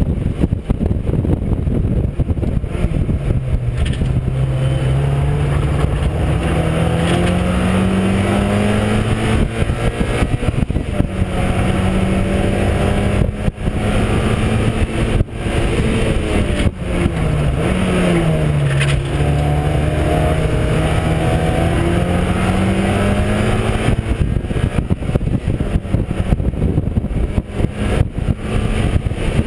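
Mazda MX-5 race car's four-cylinder engine, heard onboard at racing speed. The revs drop a few seconds in, then climb steadily for about ten seconds and hold. The sound dips briefly a few times in the middle, the revs fall again, then climb once more, and the sound turns rougher near the end.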